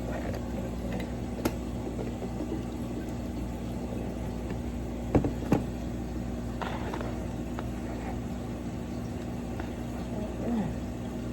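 A steady mechanical hum with a few sharp knocks: one about a second and a half in and two close together near the middle.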